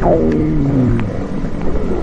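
Human stomach growling: a loud gurgling growl that starts high and slides down in pitch over about a second, then turns into a lower rumble.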